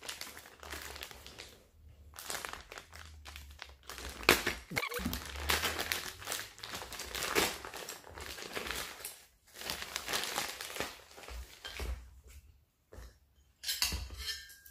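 Clear plastic parts bags crinkling and rustling as they are handled and unpacked, in uneven spells with short pauses.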